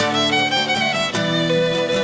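Folk band playing an instrumental break, a fiddle carrying the melody in held notes over strummed string accompaniment, with light percussion marking the beat.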